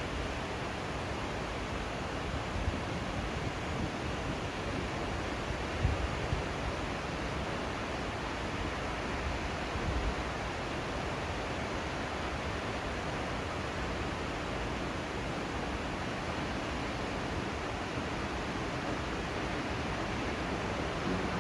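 Steady rush of a waterfall, an even hiss of falling water, with a few brief low bumps around six and ten seconds in.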